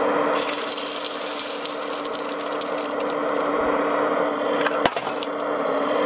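Radio-controlled model's electric drive running with a steady hum, overlaid by a loud crackling hiss that starts just after the beginning and stops about five seconds in, with a single sharp click near the end of the hiss.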